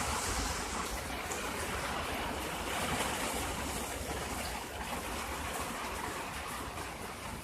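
Heavy rain pouring down, a steady even hiss of falling water.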